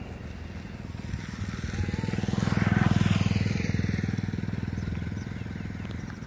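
A motor vehicle's engine passing close by, swelling to its loudest about three seconds in and then fading away.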